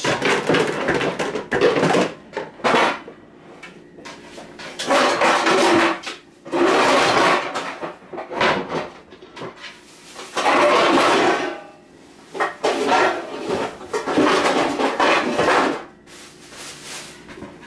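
Mixing bowls and dishes being handled on a kitchen counter: a string of clattering, scraping bursts about a second long each, with short pauses between, while eggs are set up for an egg wash.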